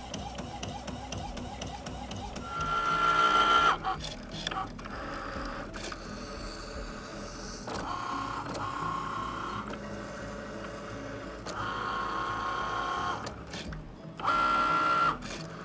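Cricut Maker cutting machine working a print-then-cut sheet: its motors whir in several separate runs as the mat feeds and the carriage moves. The loudest runs come about three seconds in and again near the end.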